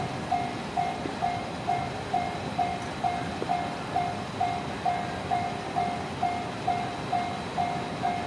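Japanese railway level-crossing warning bell ringing: an even, repeating electronic ding, a little over two strokes a second.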